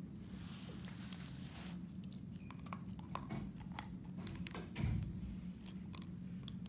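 Siberian husky sniffing and mouthing a nylon leash and its metal clip held in a hand: soft sniffs, small clicks and rustles, with a low thump about five seconds in.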